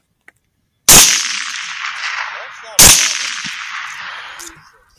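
Two gunshots about two seconds apart, each very loud and sharp, followed by a long echo dying away over about two seconds.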